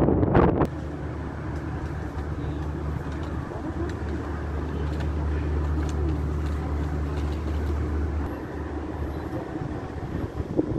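Distant city traffic with a steady low engine rumble that fades about eight seconds in. A burst of wind on the microphone at the very start.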